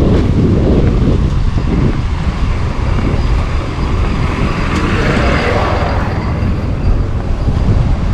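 Strong wind buffeting the microphone, with a rushing sound that swells and fades between about four and six and a half seconds in.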